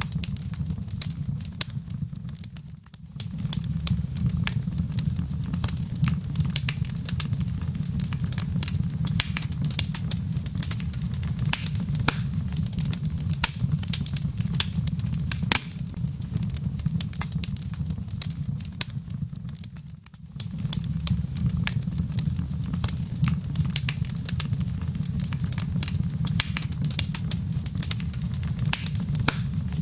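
Wood fire crackling with dense, irregular pops over a steady low rumble. The sound briefly dips away twice, about three seconds in and about twenty seconds in.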